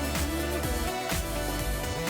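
Background music with a steady beat and a sliding melody line.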